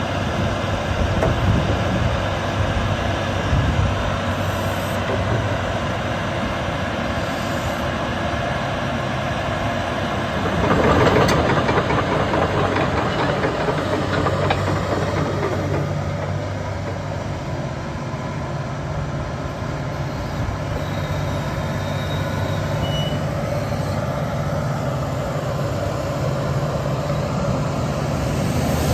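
Doosan DX225LC-3 crawler excavator's diesel engine running under load with its hydraulics working as the upper structure slews round and the boom lifts and lowers. The sound grows louder for a moment about eleven seconds in.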